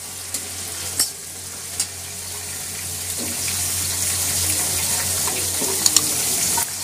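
Diced potato, carrot and green peas sizzling in hot oil in a steel kadai, the sizzle growing steadily louder. A few metal spatula scrapes against the pan in the first two seconds, and two sharp clicks near the end.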